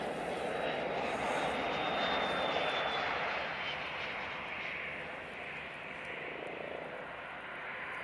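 Learjet business jet landing: its jet engines rush with a thin high whine that sinks slightly in pitch over the first few seconds. The noise is loudest about two seconds in and then fades as the jet touches down and rolls out.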